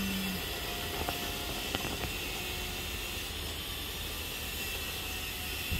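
Steady outdoor background noise: a low rumble under a hiss, with a few faint ticks about one and two seconds in.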